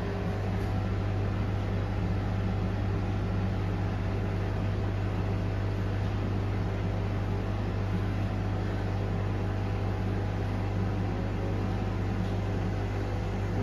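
Washing machine running through its wash cycle, a steady machine hum with a strong low drone.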